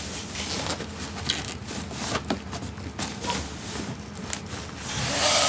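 Rustling and scuffing of packaging as a heavy audio receiver is pulled out of its cardboard box, with scattered small clicks and crinkles. About five seconds in, a louder, steady rubbing scrape starts as the unit slides against the box.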